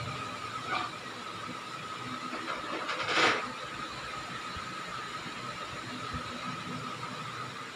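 Steady background hiss with a constant thin whine, and a short burst of noise about three seconds in.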